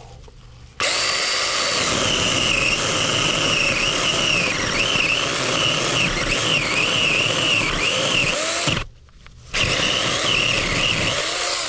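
Sharklogger cordless mini chainsaw running and cutting into a wooden stump, its high motor whine dipping and recovering in pitch as the chain bites. It stops for a moment about nine seconds in, then runs again.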